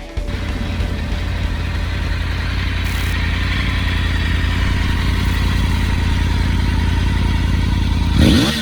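Triumph Tiger 900's three-cylinder engine idling steadily through a Hurricane carbon-fibre aftermarket exhaust, then one quick rev of the throttle near the end.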